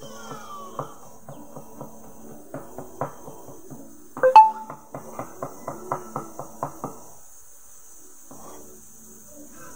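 Cartoon soundtrack playing from a TV: a rhythmic tune with about five beats a second that stops about seven seconds in. About four seconds in there is a single sharp, ringing clink, the loudest sound, over a steady high hiss.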